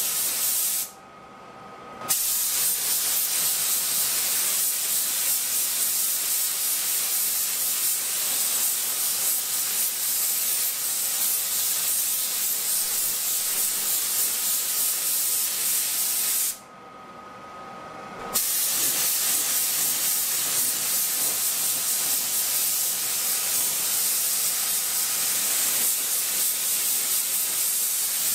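Air-powered gravity-feed paint spray gun hissing steadily as it sprays paint. The trigger is let off twice, about a second in and again a little past halfway, and each time the spray hisses back on sharply after a second or two.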